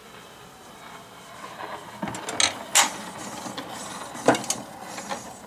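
Faint steady hiss from the record surface under the needle on a 1927 Victrola Credenza orthophonic phonograph, then, about two seconds in, a run of sharp clicks and knocks from the machine's tonearm and reproducer being handled.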